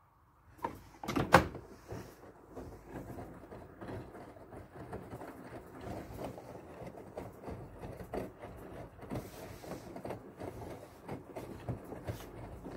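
Siemens WM14Q363NL front-loading washing machine: the plastic detergent drawer is slid shut with a couple of sharp clacks about a second in. After that the drum keeps turning, tumbling the soapy laundry with splashing water and a run of small irregular knocks.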